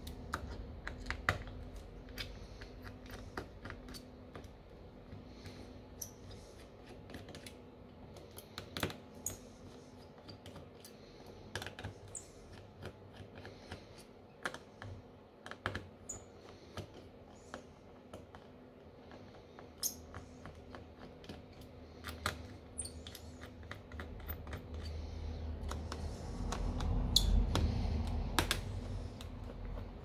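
Sparse light clicks and taps of a small precision tool and tiny screws on a smartphone's plastic frame during disassembly, with a louder stretch of rubbing and handling near the end.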